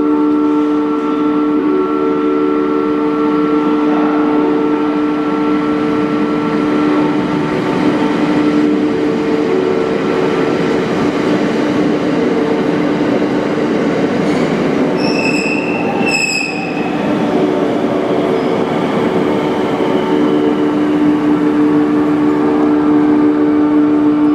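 JR West 521 series AC/DC electric train pulling in along the platform and slowing to a stop, with rail and running noise swelling in the middle as the cars pass. A steady multi-tone electrical hum runs underneath. Two short high-pitched squeals or tones sound close together about two-thirds of the way through.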